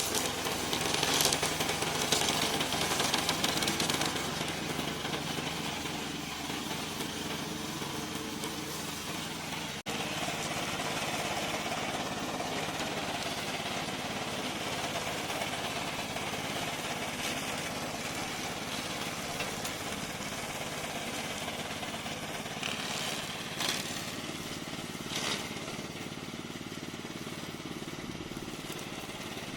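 Tracked remote-control lawn mower running steadily, its engine and cutting blade going as it mows, louder with bursts of hiss in the first few seconds and a brief break about ten seconds in.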